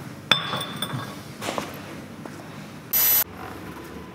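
A glass beer bottle set down on a concrete floor with a sharp clink that rings briefly, followed by lighter knocks of glass. About three seconds in, a short, loud hiss.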